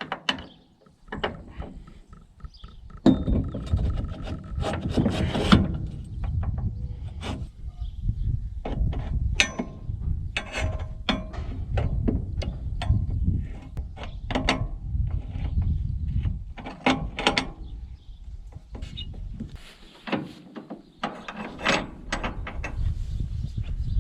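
Metal parts of a combine grain platform clanking, knocking and scraping as a guide arm is fitted onto the header's end piece: irregular knocks and rattles over a low rumble.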